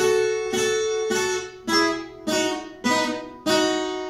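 Viola caipira, the Brazilian ten-string guitar, plucking a slow phrase of paired-string double stops: about seven notes a little over half a second apart, each left to ring.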